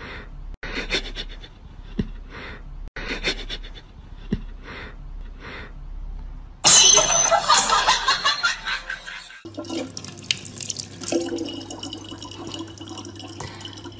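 A cat sniffing at a sock in short noisy sniffs, roughly one a second. About halfway through comes a loud noisy burst lasting about three seconds. Then water runs from a tap into a plastic water bottle, with a steady low hum underneath.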